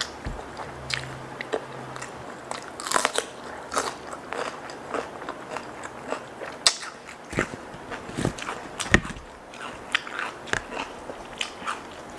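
Close-miked eating: irregular crunching, biting and chewing of chili-smothered fried chicken and raw cucumber, with wet mouth clicks.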